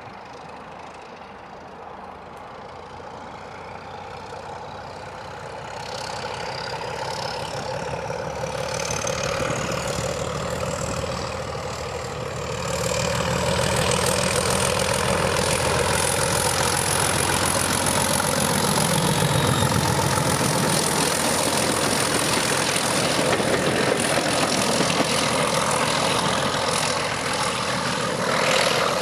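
Class 31 diesel locomotive's English Electric 12SVT engine working under power as the loco approaches and passes, growing steadily louder before holding at full volume. A thin high whine rises in pitch as it draws near, then holds steady.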